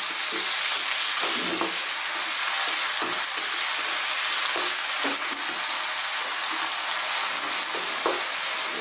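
Chopped tomato, onion and garlic sizzling in hot oil in a wok, stirred with a wooden spatula. Irregular scrapes and light knocks of the spatula against the wok sound over the steady sizzle.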